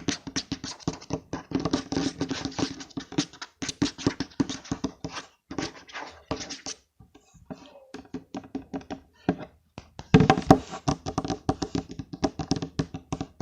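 Rapid tapping on a mobile phone with the fingers, many quick taps a second for ASMR, going fainter and sparser for a few seconds in the middle and louder again from about ten seconds in.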